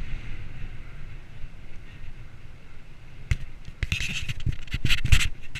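Low rumble of wind on the microphone and a bicycle rolling along a paved path. From about three seconds in, a run of sharp clicks and knocks, the loudest near the end, as a hand handles the action camera.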